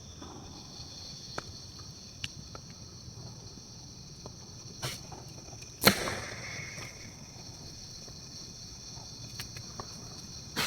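Steady high-pitched chorus of night insects, with a few scattered sharp clicks and one louder knock about six seconds in.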